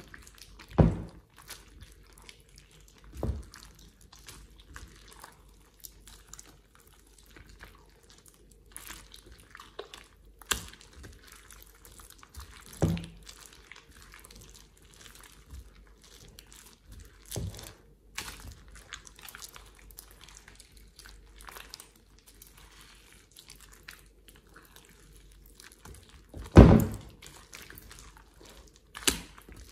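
Sticky slime being kneaded and squished by hand in a glass bowl: soft wet squelching and crackling, broken by a few louder wet plops, the loudest near the end.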